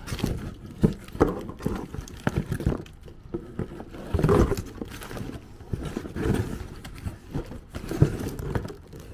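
A new automotive wiring harness and its packaging being handled: irregular clicks, knocks and rustling, a little louder about four seconds in.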